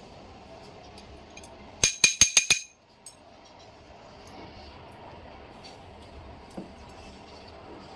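A quick run of about six sharp, ringing metallic clinks, about two seconds in, like metal tools or parts being struck or dropped together, over a low steady background.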